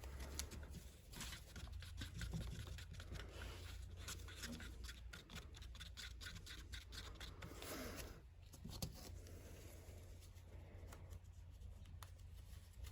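Faint, irregular scratching and clicking from gloved hands handling small objects, over a low steady hum.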